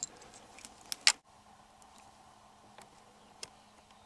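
A few light clicks and knocks, the loudest about a second in, from a scoped hunting rifle being handled and settled on a shooting stick.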